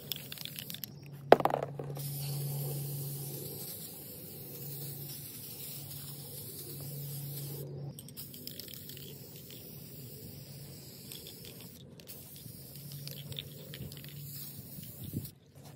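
Aerosol spray paint can hissing as paint is sprayed, broken by a few brief pauses, with one sharp knock about a second in.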